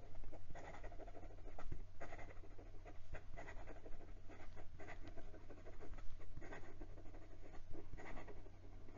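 Extra fine nib of a Moonman P135 fountain pen moving across notebook paper in fast cursive writing, a quick run of uneven pen strokes.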